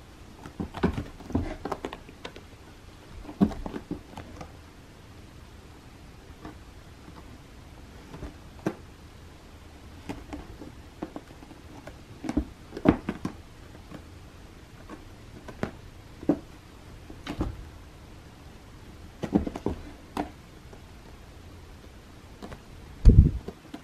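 A cat's paws thumping and scuffing on a carpeted scratching ramp as it bats at a fluffy boa toy: irregular soft knocks every second or two, the loudest near the end.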